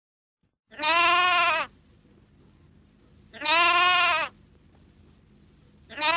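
Lamb bleating three times, each bleat about a second long with a wavering, quavering pitch, the bleats about two and a half seconds apart.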